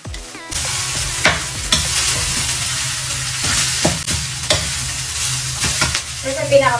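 Garlic fried rice sizzling in a metal wok, starting about half a second in. A metal spatula repeatedly scrapes and knocks against the pan as the rice is stirred, over a low steady hum.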